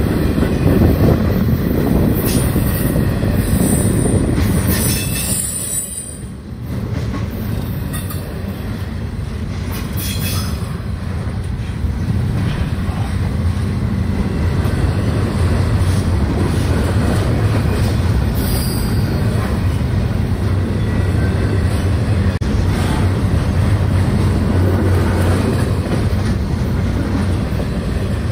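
Double-stack container well cars of a Union Pacific intermodal freight train rolling past close by: a steady, loud rumble of steel wheels on rail. Brief high-pitched wheel squeals come a few times.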